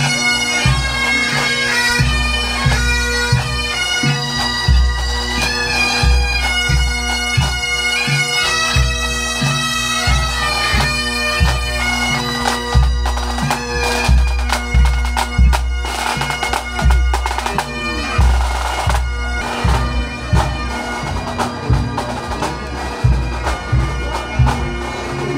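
Pipe band playing: bagpipes sounding a tune over their steady drone, with drums beating a regular march rhythm.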